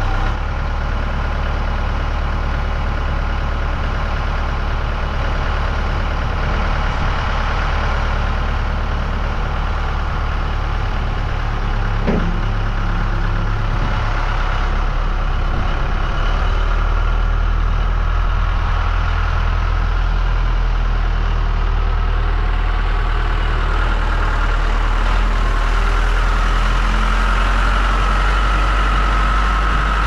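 2000 Case 580L backhoe loader's four-cylinder diesel engine idling steadily.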